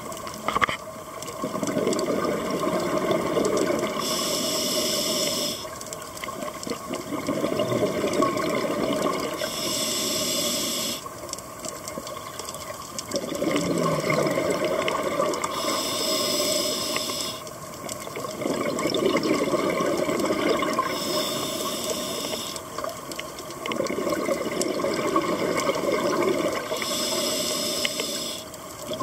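Scuba diver breathing through a regulator: a short hiss on each inhale, five times about five to six seconds apart, alternating with longer stretches of rushing, bubbling exhaust as each breath is let out.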